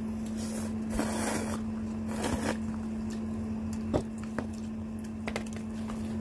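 A person slurping instant noodles from a soup bowl in three noisy pulls, the longest about a second in, then chewing, with a few light clicks of chopsticks.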